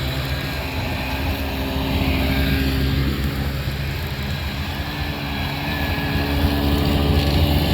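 Several snowmobiles passing slowly, their engines running with a steady drone that swells twice as they go by.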